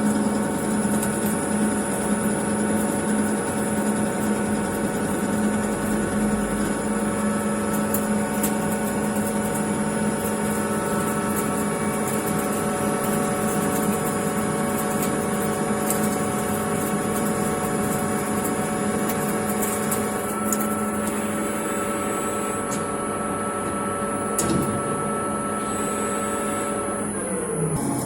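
CK6180 CNC lathe running with a steady, multi-toned machine hum and a few light clicks; near the end its pitch glides down as it slows.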